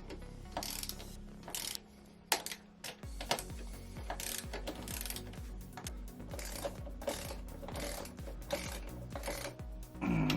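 Ratchet wrench clicking in short irregular runs while bolts are put back in and tightened.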